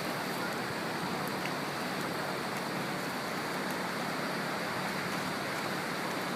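Ocean surf washing steadily on the beach, a continuous hiss of breaking waves.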